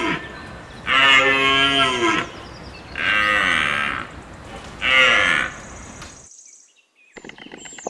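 Deer calling: three long bellows about two seconds apart, each about a second long and dropping in pitch at its end.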